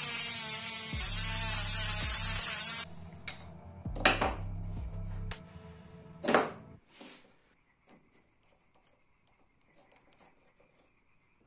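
Handheld rotary tool with a small sanding bit running at high speed against wood, a hissing whine that wavers as it bites, stopping about three seconds in. Background music with a low bass line continues until about seven seconds in, with two sharp knocks in between, then only faint small clicks.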